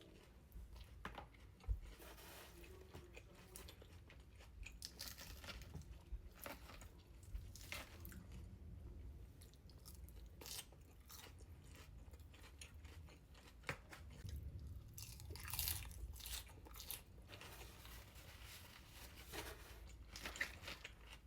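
A person chewing and crunching food in irregular bites, with a few sharper crunches.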